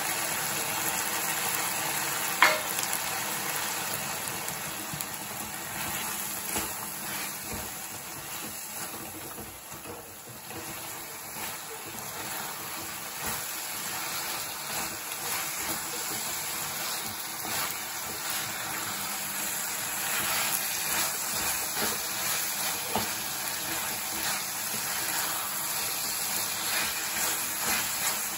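Chicken pieces sizzling in a pan while a wooden spatula stirs and scrapes through them as ground pepper masala is mixed in. There is one sharp clack about two seconds in.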